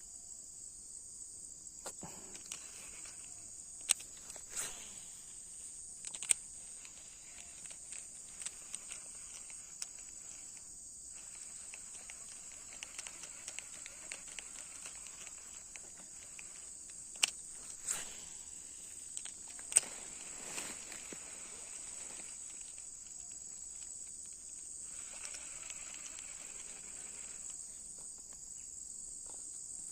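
Insects droning steadily at a high pitch, with a few sharp clicks scattered through.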